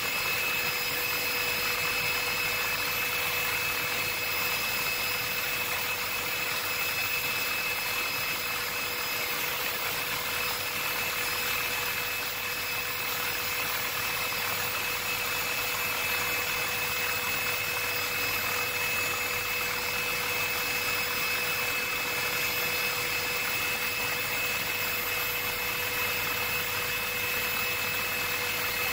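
Helicopter noise heard from inside the cabin: a steady rush with a constant high whine over it, unchanging in pitch.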